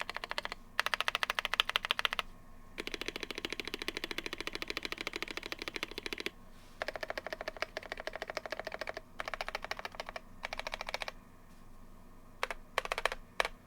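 Fast typing on a GMMK Pro mechanical keyboard with stock Boba LT tactile switches, EPBT PBT keycaps and an FR4 plate, in dense runs of keystrokes broken by short pauses. The typing stops for about a second near the end, then a few single keystrokes follow.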